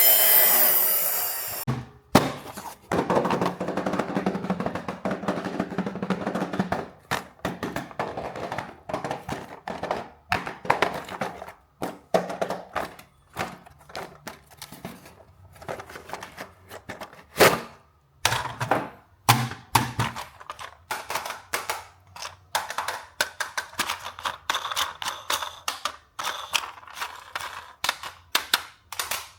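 Toy and packaging being handled during an unboxing: a long run of irregular plastic clicks, taps and knocks with light scraping between them. It follows a stretch of music that cuts off about two seconds in.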